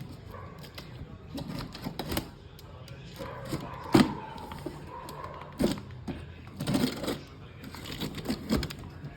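A cardboard box being cut open with a knife: irregular scraping and cutting through tape and cardboard, with a few sharp knocks as the box is handled, the loudest about four seconds in.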